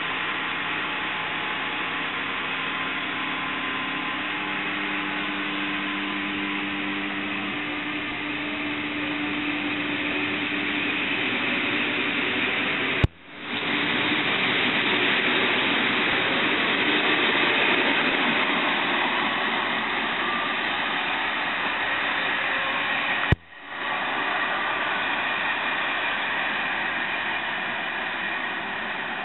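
Passenger train hauled by an electric locomotive passing directly beneath: steady rolling noise from the wheels and coaches, with a low hum from the locomotive that fades over the first several seconds. There are two sharp clicks with brief dropouts, at about 13 and 23 seconds.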